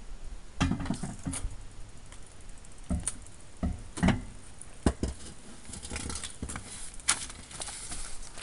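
Knocks and clanks of a car's exhaust back box being worked loose from its mountings under the rear of the car, with scraping and scuffing between the knocks.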